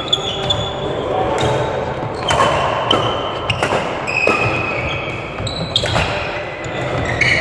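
Badminton rally: a string of sharp racket strikes on a shuttlecock, about one a second, echoing in a sports hall. Short high squeaks of court shoes on the floor come between the strikes, with voices in the background.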